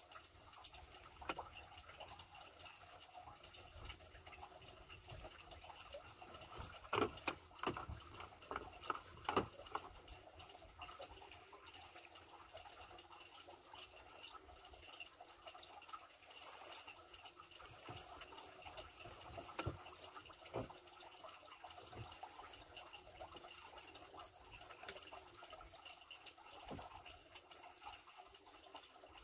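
Faint water lapping and dripping against the side of a small boat, with scattered sharp taps and splashes, a cluster of them about seven to ten seconds in.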